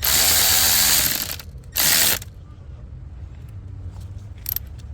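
Cordless electric ratchet spinning a bolt down on the PCV valve housing in a long run, then a short second burst about two seconds in, as the bolt stops against its metal insert.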